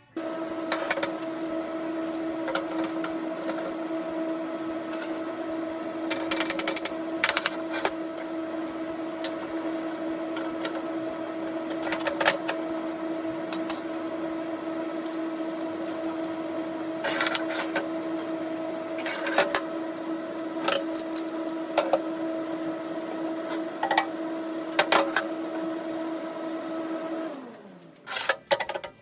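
An electric power tool's motor runs at a steady speed, with scattered sharp clicks and scrapes of metalwork, then winds down with falling pitch near the end as it is switched off.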